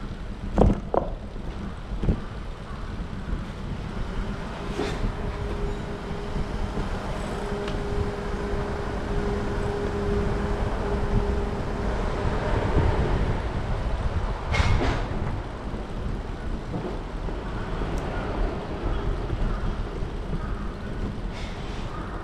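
Urban street ambience: a steady low rumble, with a held hum through the middle and a few sharp knocks.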